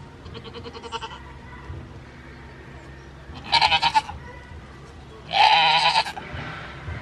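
A goat bleating: two loud, quavering bleats, about three and a half and five and a half seconds in, the second longer.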